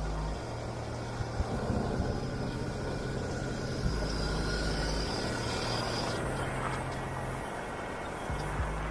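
TGB Blade 1000 ATV's V-twin engine running steadily.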